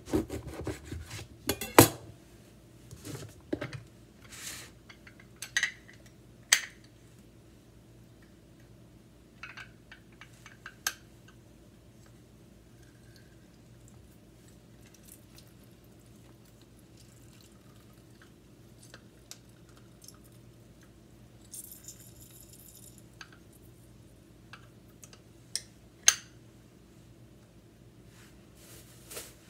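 A knife cutting through a lime onto a cutting board, a quick run of sharp knocks in the first few seconds. Then scattered clicks and light knocks as the lime halves go into a handheld citrus squeezer and are pressed, with long quiet stretches and a faint steady hum underneath.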